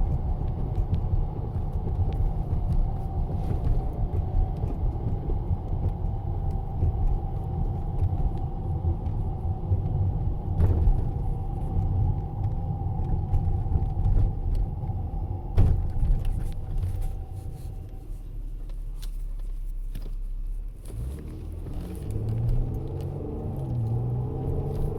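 A Chrysler 200 AWD on the move, with a steady whirring whine over road rumble. The whirring fades out about three-quarters of the way through, leaving a low hum, and then tones that rise and fall.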